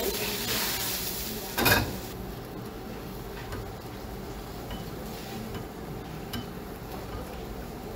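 Prawns going back into a wok of boiling sauce with a hissing sizzle, and a metal utensil knocking once, loudly, against the wok a little under two seconds in. After that comes a steady low rumble with a few light ladle taps.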